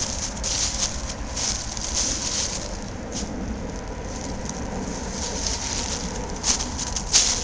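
Footsteps crunching through dry fallen leaves, about two steps a second, softer for a couple of seconds in the middle.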